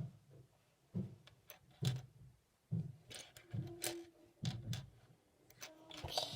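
Plastic Lego pieces being handled, giving short light knocks and clicks about once a second.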